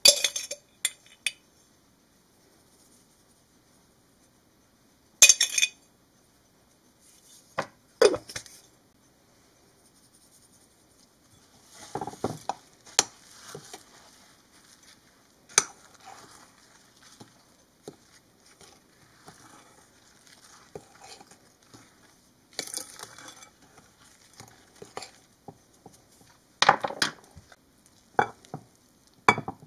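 A metal spoon stirring dry flour and oats in a ceramic mixing bowl, scraping and clinking against the bowl in irregular strokes. A few separate sharp knocks come before the stirring starts.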